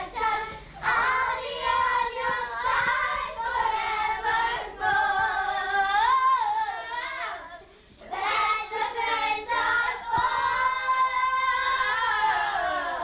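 Children singing together in two long phrases of held notes, with a short break between them about two thirds of the way through.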